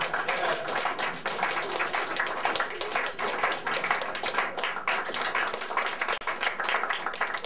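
A small crowd applauding: many people clapping their hands steadily in a round of applause.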